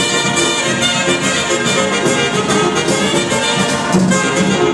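Loud dance music with brass horns, played over a DJ's sound system in a banquet hall.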